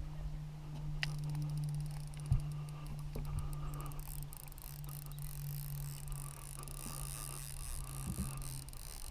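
Fishing reel being wound, giving a fast ticking, over a steady low hum and wind rumble on the microphone. A single thump about two and a half seconds in.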